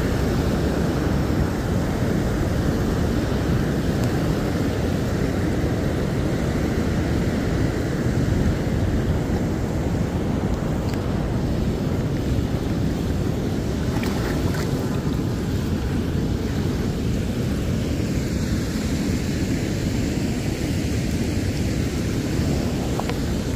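Steady rush of fast, foamy river current, mixed with wind buffeting the phone's microphone.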